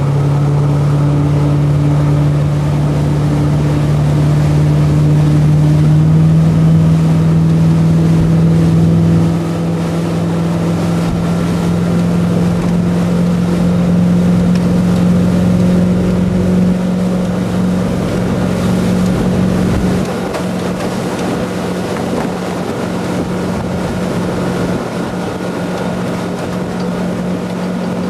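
Centurion Typhoon wakeboard boat's inboard engine running steadily at speed while towing a wakeboarder. Its drone rises slightly in pitch over the first several seconds and then holds, over the rush of the wake and wind on the microphone.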